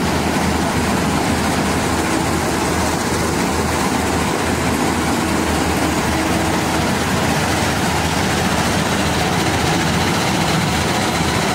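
Channy combine harvester cutting ripe paddy: its diesel engine and its cutting and threshing machinery run together in one steady, unbroken mechanical noise.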